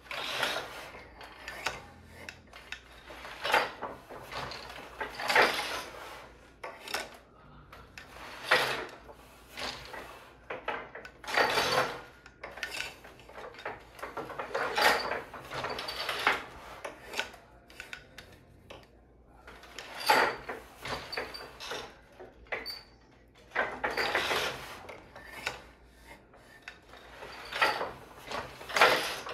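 Wooden floor loom being woven: a run of rubbing, sliding and knocking sounds every couple of seconds as the sheds are changed, the shuttle is passed through and the weft is beaten in for a double-weave tube.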